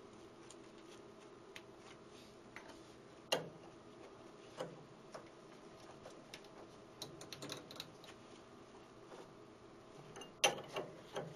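Scattered light clicks and knocks of gloved hands handling tools and parts at a small lathe's tool post, with a quick run of clicks a little past the middle and the loudest knocks near the end, over a faint steady hum.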